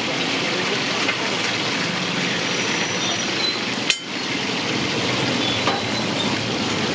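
Whole fish deep-frying in hot oil in a wide pan: a steady sizzle, with occasional clinks of a metal spatula against the pan and a sharper click about four seconds in.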